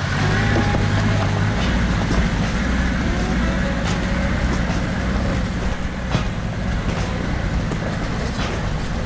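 Land Rover Defender engine running steadily as the 4x4 drives through a shallow river, with water splashing and rushing around the tyres and a few sharp knocks from the stony bed.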